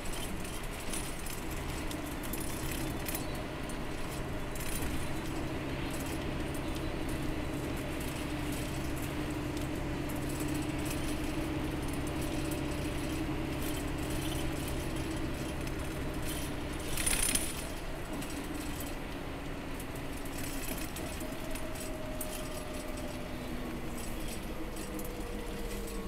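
Express bus engine and road noise heard from inside the passenger cabin, a steady drone with light rattling from the interior. A brief hiss about seventeen seconds in, and the engine note falls gradually near the end.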